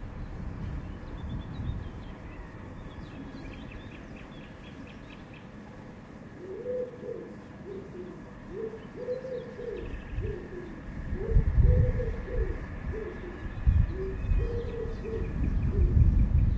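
Nature-sounds tape playing back on a Unitra Uwertura M1417S reel-to-reel tape recorder: small birds chirping, then from about six seconds in a dove cooing over and over in low repeated phrases. Low rumbles swell up twice in the second half.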